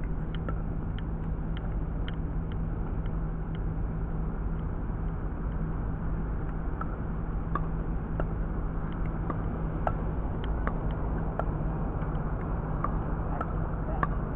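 Pickleball play: scattered sharp pocks of paddles striking plastic balls and balls bouncing on the hard courts, about one or two a second at irregular intervals, over steady outdoor background noise with a constant low hum.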